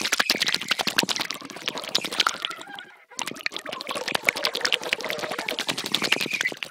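Air bubbling out of bubbler tubing underwater, picked up by a submerged piezo contact microphone: a dense, crackling stream of bubble pops that stops briefly about three seconds in, then starts again.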